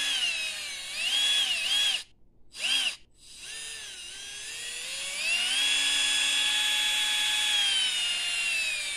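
Axial 27-turn brushed 540 electric motor spinning free in the hand on a bench test, its whine rising and falling with the throttle. It gives a few short spin-ups and a brief blip, then climbs slowly to a steady high whine that holds for a couple of seconds before winding down near the end.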